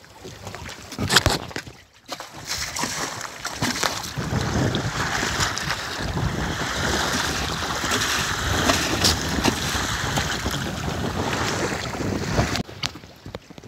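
Wind buffeting the microphone over the wash of sea waves around a small boat, a steady rushing noise that breaks off abruptly near the end. A brief loud bump comes about a second in.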